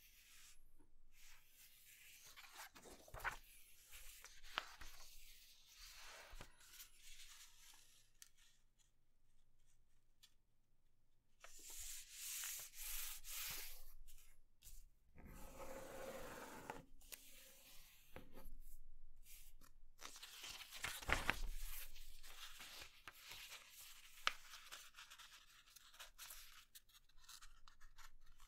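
A sheet of paper being folded by hand: rustling and fingers rubbing and creasing along the folds, in short bursts with quiet pauses between.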